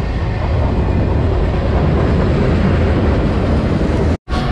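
Freight train cars rolling past at close range: a loud, steady rumble of steel wheels on rail. It cuts off abruptly near the end.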